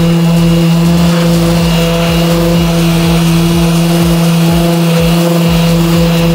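Random orbital sander running steadily with a constant hum as its pad works over a bare steel car front guard.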